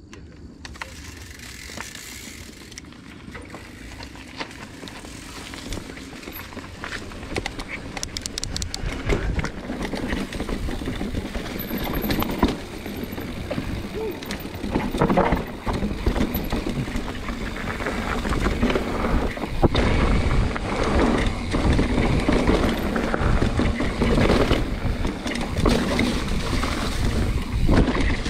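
Mountain bike rolling over a dirt trail: tyres crunching over dirt, rocks and dry leaves, the bike rattling over bumps, and wind rumbling on the camera microphone, getting louder as the pace picks up. A short run of quick ticks comes about eight seconds in.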